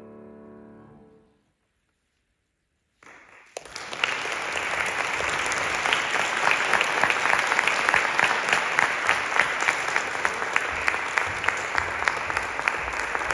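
The final grand-piano chord dies away, and after about two seconds of silence the audience breaks into applause that keeps going.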